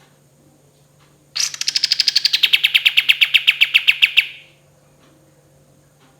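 A kapas tembak songbird giving one rapid rattling trill, about eight notes a second for roughly three seconds, starting about a second and a half in. The notes start high and settle slightly lower as the trill goes on.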